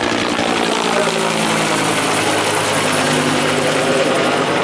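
Helicopter flying past close by, its rotor and engine noise loud and steady.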